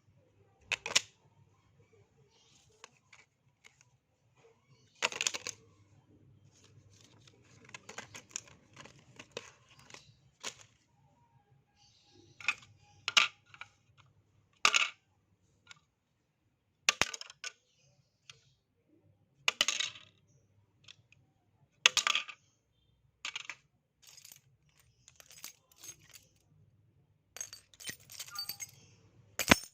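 Small hard objects being dropped one after another and landing with sharp clattering impacts, some bouncing or rattling briefly, about fifteen separate drops in all.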